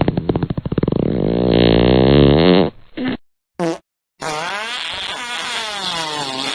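A string of spliced fart sounds: a long, loud, rattling flutter, two brief snippets, then a pitched fart that wavers up and down for the last two seconds and cuts off sharply.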